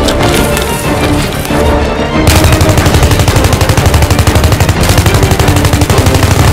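Film score playing, then about two seconds in a long burst of rapid automatic rifle fire starts and keeps going over the music.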